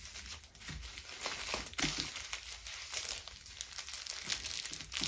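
Plastic cling film crinkling irregularly as hands twist its ends and press it tightly around a log of cookie dough.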